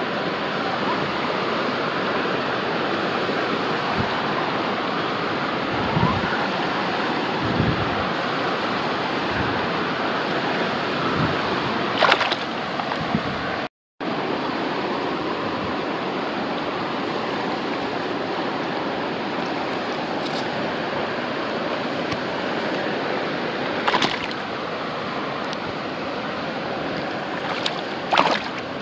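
Steady rush of river water close to the microphone, with a few sharp splashes as a netted barbel is handled in the shallows: about twelve seconds in, and twice near the end.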